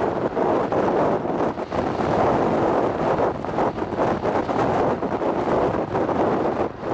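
Strong gusty wind buffeting the microphone: a loud, unsteady rushing that swells and dips.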